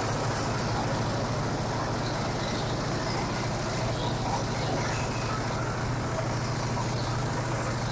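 Large engine-driven corn sheller running steadily, with a constant low drone and an even hiss of machinery.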